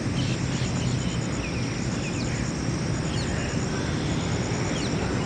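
Outdoor background noise: a steady low rumble, with small birds chirping now and then and a faint high pulsing sound throughout.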